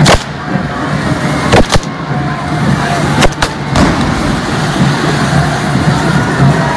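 Firework fountains on a festival dragon's head hissing steadily as they spray sparks, with sharp bangs: one at the very start, two about one and a half seconds in, and three more between three and four seconds in.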